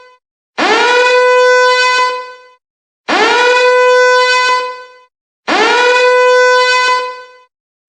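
Siren sound effect giving three repeated blasts, each about two seconds long, spaced about two and a half seconds apart. Each blast sweeps quickly up to a steady high tone, holds it, then fades out without dropping in pitch, with the tail of an earlier blast dying away at the start.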